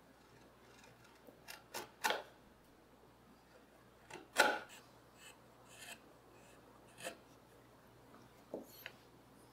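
Carving knife paring walnut at the base of a stool leg: a series of short cutting strokes at irregular intervals, the loudest about four and a half seconds in.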